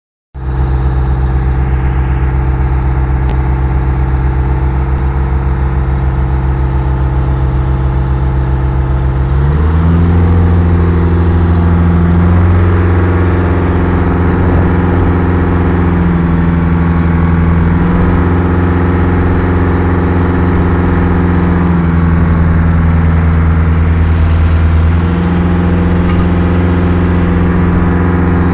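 Workover rig's engine running steadily, then stepping up to a higher speed about a third of the way in and holding there.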